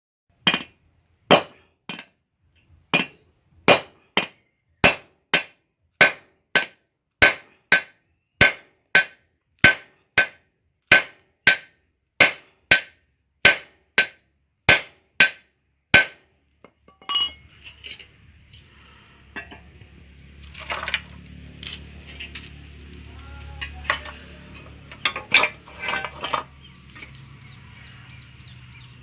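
Hand hammer striking a hot dome-head rivet to set it, in a steady run of ringing metal blows about one and a half a second, which stops after about sixteen seconds. After that there is a low workshop hum with a few scattered clinks and knocks.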